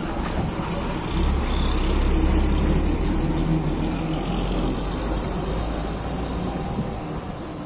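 Diesel engine of a state transport bus driving past close by. It is loudest from about one to three and a half seconds in, then fades as the bus pulls away.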